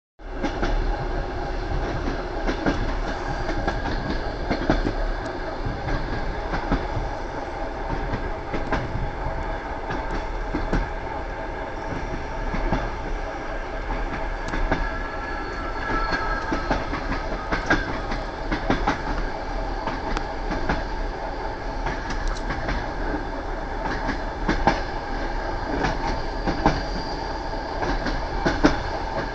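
Train wheels clattering over the rail joints: a steady rumble with frequent clicks and knocks. About halfway through there is a brief faint squeal.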